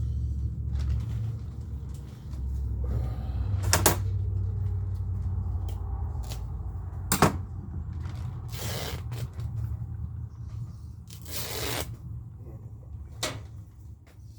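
Handling noises: sharp knocks about four and seven seconds in and short scraping rustles, over a steady low hum.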